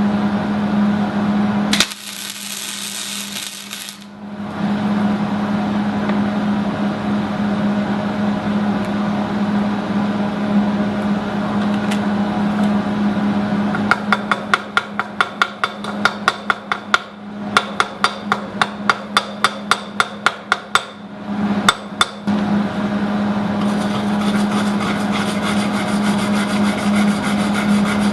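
Wire-feed (MIG) welder at its maximum heat setting striking an arc: a brief hiss about two seconds in, then, from about halfway, runs of sharp crackling pops at roughly four a second, over the welder's steady hum.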